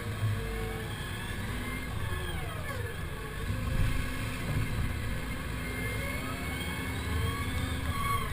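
Komatsu HB215 hybrid excavator running with a steady engine drone. A whine falls in pitch about two seconds in and rises again near the end.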